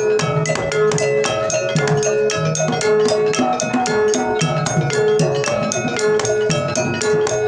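Banyumasan-style Javanese gamelan music for jaranan and tayub, with kendang hand drums playing a fast, dense run of strokes over repeating ringing metallophone notes.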